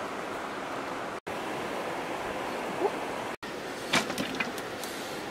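Steady rushing outdoor background noise, with a short faint chirp a little before three seconds in and a few light knocks and clicks about four seconds in. The sound cuts out completely for an instant twice.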